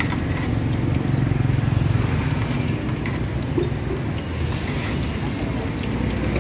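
Street traffic noise with a motor vehicle engine running steadily, loudest between about one and two and a half seconds in.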